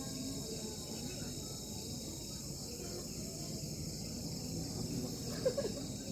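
Crickets chirring in a steady, continuous high-pitched chorus. A short sharp sound stands out about five and a half seconds in.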